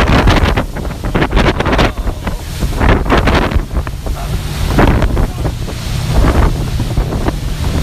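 Speedboat running at high speed across open water, its engine a steady low drone under heavy wind buffeting on the microphone and surges of water noise.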